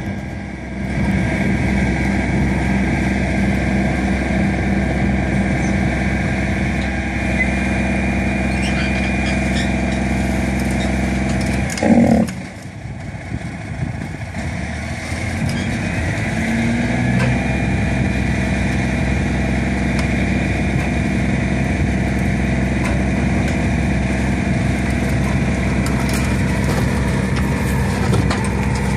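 Tow truck engine running steadily at a raised idle while its winch cable drags a car up a slope. About twelve seconds in the steady engine sound breaks off and runs lower and rougher for a few seconds, then picks up again.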